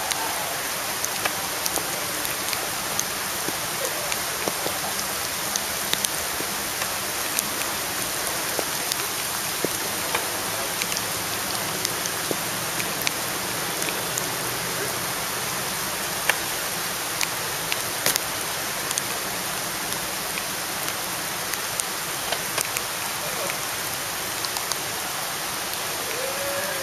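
Heavy rain pouring down in a steady hiss, with scattered sharp ticks here and there.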